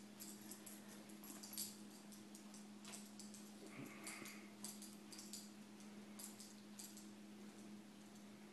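Faint sounds of a dog eating a slice of pizza: scattered soft clicks and smacks of chewing, with a steady low hum beneath.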